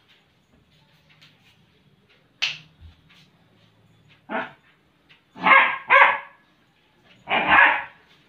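German shepherd barking in play: a single bark about four seconds in, a quick pair a second later, and a longer bark near the end. A brief sharp high sound comes before them, about two and a half seconds in.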